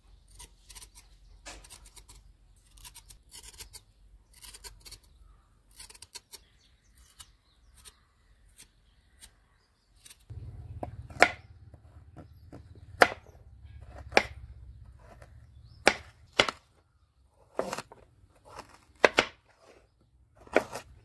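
A kitchen knife scraping the skin off a fresh turmeric root in short, repeated strokes. About ten seconds in, it changes to the knife chopping the peeled root on a wooden board: sharp, irregular knocks a second or two apart over a low hum.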